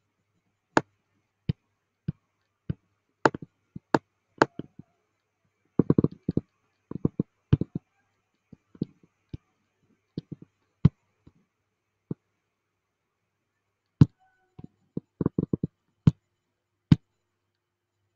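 Computer mouse clicking at irregular intervals, single clicks and quick clusters of several.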